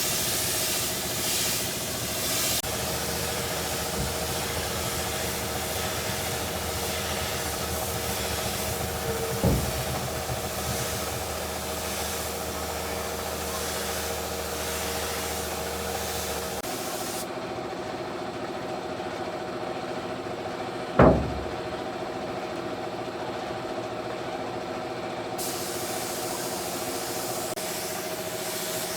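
A steady mechanical hum, like an engine or motor running, with two sharp knocks, the second one louder.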